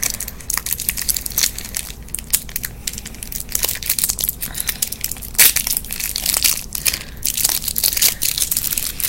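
Packaging around a small eyeshadow sampler crinkling and crackling as it is opened by hand, in dense irregular crackles with one sharper crack about five seconds in.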